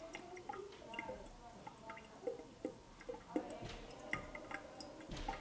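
Water spurting in a thin jet from a small hole near the base of a water-filled plastic bottle, splashing and dripping onto the counter in many small irregular plinks.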